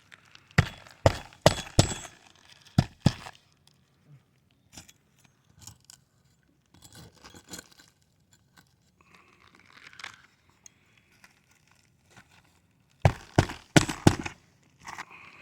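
Roofing work on brittle asphalt shingles: two runs of sharp knocks, about six near the start and five near the end, with faint scraping between them.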